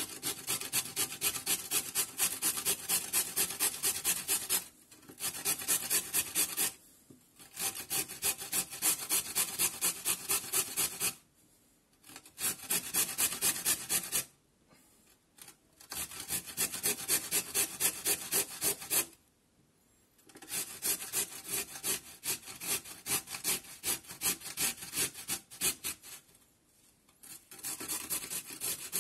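Carrot being grated on a stainless steel box grater: quick rasping strokes, about three or four a second, in runs of a few seconds broken by short pauses.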